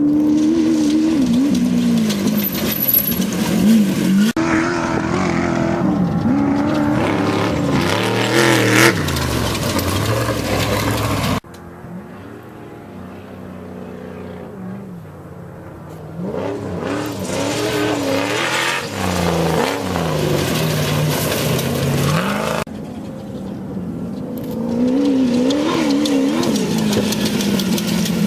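Off-road race vehicle engines revving and running past, the pitch repeatedly climbing and falling as they accelerate and back off. The sound changes abruptly a few times and is quieter for several seconds in the middle.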